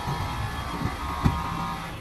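Isuzu Giga's 6UZ1 inline-six diesel engine idling steadily, with a single sharp knock a little past a second in.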